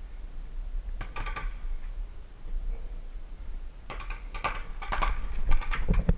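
Paintball markers firing: a few quick pops about a second in, then a rapid string of pops from about four seconds on.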